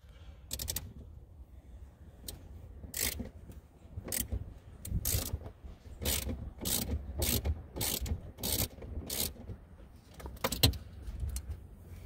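A 13 mm wrench working the nut on a car battery's negative terminal clamp, loosening it to disconnect the battery. It makes a string of sharp metallic clicks, roughly one or two a second, most frequent in the middle.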